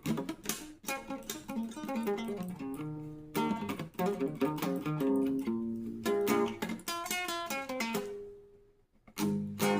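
Solo guitar music: picked notes and chords that fade away about eight seconds in, then start again just before the end.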